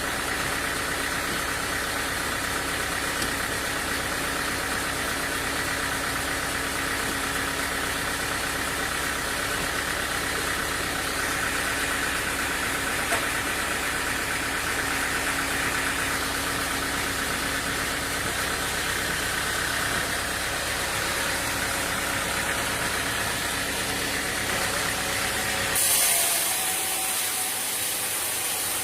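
Engine-driven machinery running steadily with a constant pitch. About 26 seconds in it cuts abruptly to a steady hiss.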